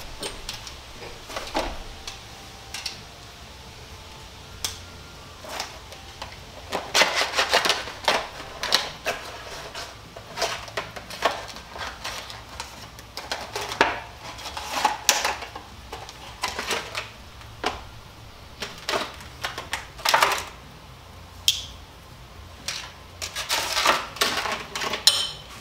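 Irregular bursts of crackling and clicking from hands working a brass air-hose fitting and a roll of Teflon tape, the tape being pulled off and wrapped around the fitting's pipe thread.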